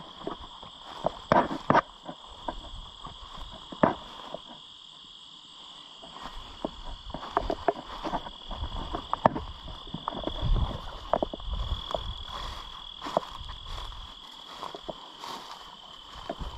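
Steady high chirring of insects in a grassy field, with the crunch and swish of footsteps through dry grass and weeds several times over it.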